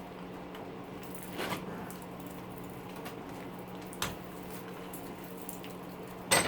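Hand work on a small electric motor being stripped for its copper: a few sharp clicks and a scrape spaced seconds apart, over a steady low hum.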